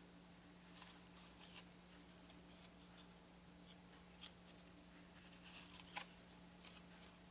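Near silence over a steady low hum, with faint light clicks and rustles of cardboard game cards being handled and laid down, a few at a time.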